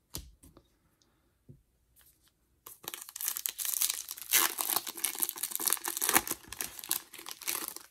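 A few light clicks as trading cards are set down on a stack, then, about three seconds in, the foil wrapper of a Topps Opening Day baseball card pack is torn open and crinkled by hand for about five seconds.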